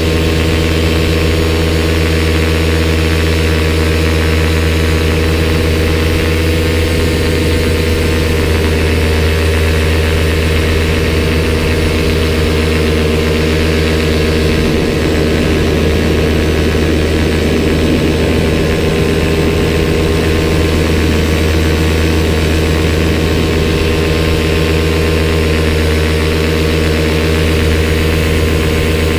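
Paramotor engine and propeller running steadily in cruise flight, heard close up from the pilot's helmet: a constant, loud drone with a strong low hum and unchanging pitch.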